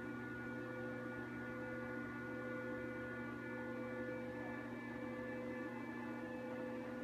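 Steady electrical hum of saltwater reef aquarium equipment: a low drone with several higher steady tones over it, unchanging throughout.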